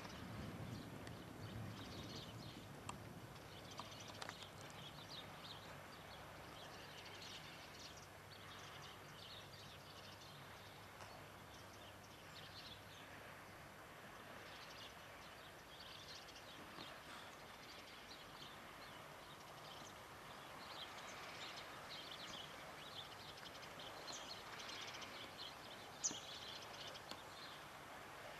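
Faint outdoor scene of many short bird calls, with the low rumble of a distant train fading away over the first several seconds. A single sharp click sounds near the end.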